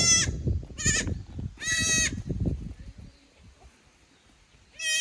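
Young goats (kids) bleating in short, high-pitched calls: three in the first two seconds, the third longer, then one more near the end, over low rustling and bumping from the animals moving about.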